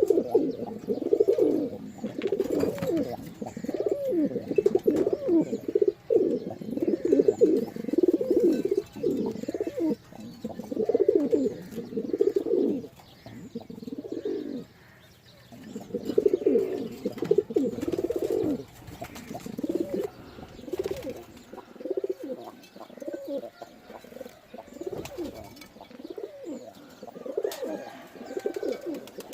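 Domestic pigeons cooing, many low coos in quick succession. The cooing has a brief lull about halfway and grows quieter and sparser in the last third.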